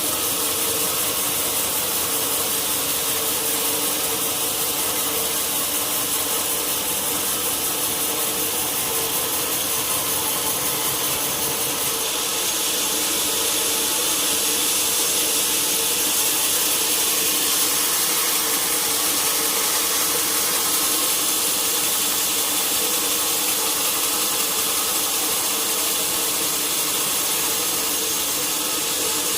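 Sawmill saw running through a large log, a steady machine drone with a loud hissing cut. About twelve seconds in the hiss grows brighter and stays so.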